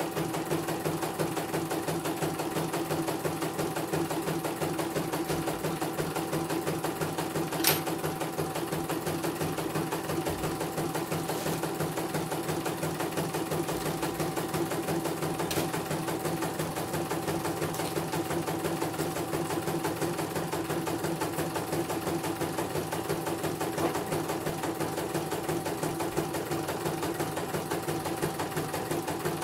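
CNY portable computerized embroidery machine stitching a design: a fast, steady run of needle strokes over a constant motor hum. There is one sharp click about 8 seconds in.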